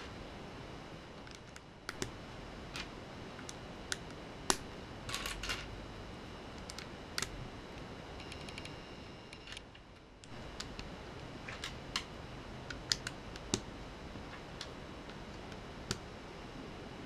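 Small plastic Lego pieces clicking as they are handled and snapped together, in scattered single clicks and short quick clusters over a steady low hiss.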